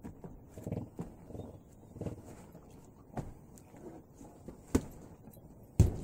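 Hands and forearms knocking against the arms of a self-made, duct-tape-wrapped Wing Chun dummy during slow drills: dull knocks about a second apart, the two sharpest near the end.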